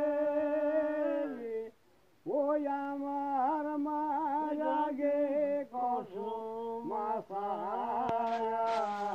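An elderly man singing a Bengali dhua folk song, a single voice: a long held note that sags in pitch and breaks off about a second and a half in, then after a short pause a new line sung with quick wavering ornaments and slides.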